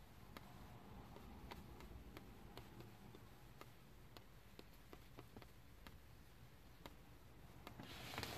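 Near silence with faint, regular ticking about twice a second, and a short burst of noise near the end.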